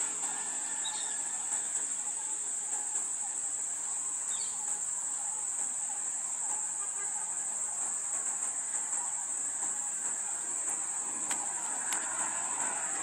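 Steady, high-pitched insect chorus. Near the end a car approaches and its engine and tyres grow louder beneath it.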